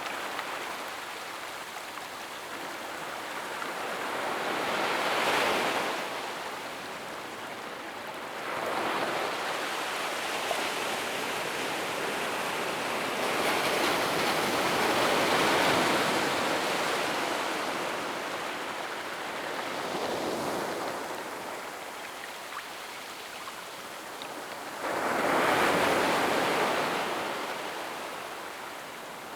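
Gentle ocean waves breaking and washing up a sandy beach, each surge swelling and then fading; several arrive in turn, the last starting suddenly near the end.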